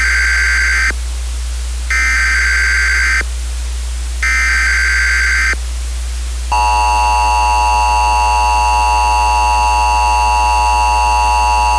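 Emergency Alert System broadcast tones: three bursts of buzzing digital SAME header data, each about a second long and a second apart, then the steady two-tone EAS attention signal (853 and 960 Hz together) starting about six and a half seconds in and held, all over a constant low hum.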